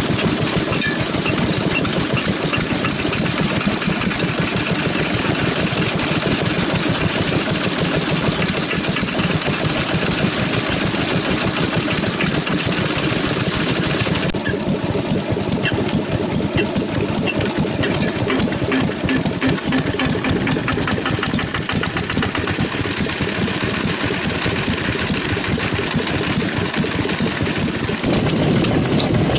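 Old single-cylinder stationary diesel engines running with a fast, steady firing beat. The sound changes about halfway through and grows louder near the end as a different engine takes over.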